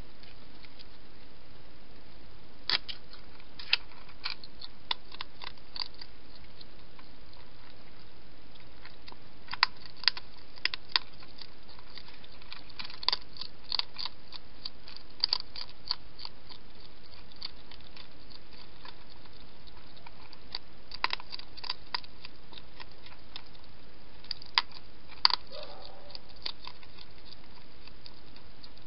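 A wild hedgehog chewing dry food: sharp crunches come in irregular bursts of several bites, with pauses between them, over a steady hiss.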